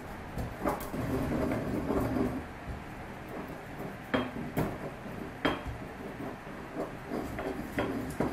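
Pestle crushing toasted whole spices (white peppercorns, star anise, coriander seed) in a small mortar. There is a grinding rasp in the first couple of seconds, then a few sharp knocks of the pestle against the mortar.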